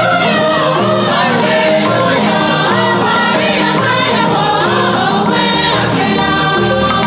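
Choir singing a Catholic liturgical acclamation over a rhythmic accompaniment with a repeating bass pattern.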